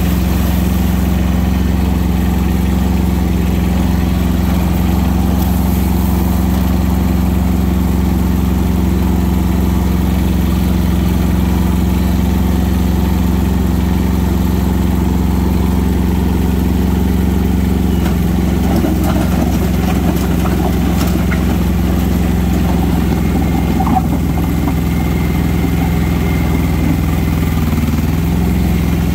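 Kubota compact tractor's diesel engine running steadily at a constant speed. A rougher, uneven noise joins it from about eighteen seconds in.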